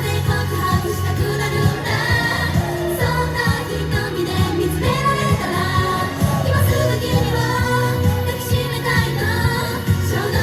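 J-pop idol song with singing over a steady beat.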